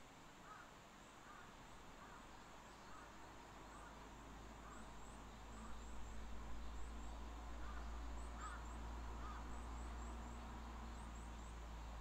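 Crows cawing in a repeated series, faint, with thin high chirps and a steady low rumble underneath.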